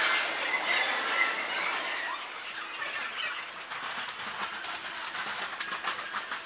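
Train wheels squealing on the rails at a station, with high screeching tones strongest in the first second or so over steady rail noise. A run of short, light ticks follows in the second half.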